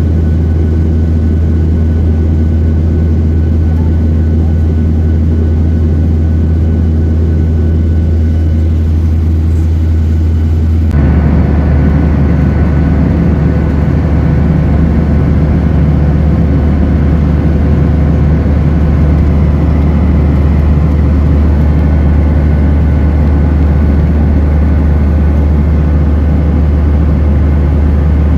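Steady cabin drone of a Boeing 737-800 in flight, its CFM56 turbofan engines and the rushing airflow heard from inside the passenger cabin. About eleven seconds in the drone changes abruptly, becoming slightly louder and brighter, then holds steady again.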